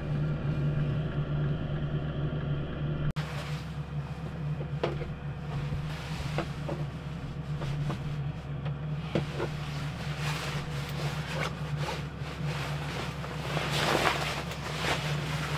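A motor running with a steady low hum, under rustling and light knocks of someone moving about and handling gear.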